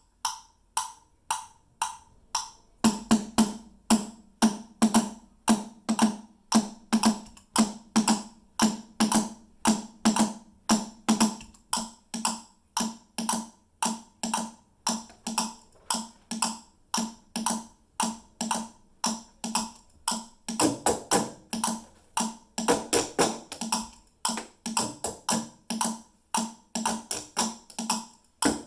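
Steady rhythmic drumming on everyday household items used as drums, such as plastic food containers, bottles and buckets. A light, woody clicking pattern opens; about three seconds in a deeper, ringing bass hit joins in, and after about twenty seconds the playing grows busier.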